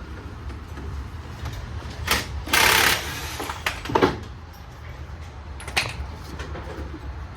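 Metal clunks and knocks from work on a car's coil-spring suspension, with a loud, harsh scraping burst lasting about half a second near the middle, over a steady low rumble.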